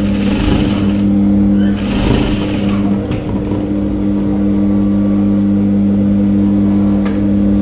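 Industrial sewing machine's electric motor humming steadily while running, with fabric rustling as the piece is handled in the first few seconds.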